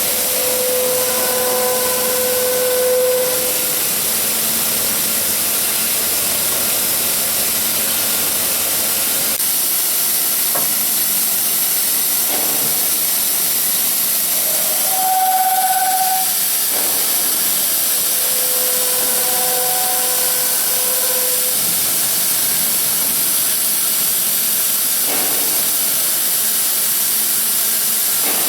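BDM1260/7A 7-axis CNC beam drilling machine at work during a drilling test: a steady hiss with whining tones from its drives that come and go, swelling briefly about three seconds in and again about halfway through.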